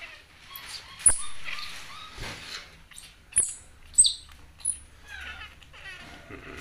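Baby monkey sucking milk from a bottle: a few sharp smacking clicks and about four brief, very high squeaks.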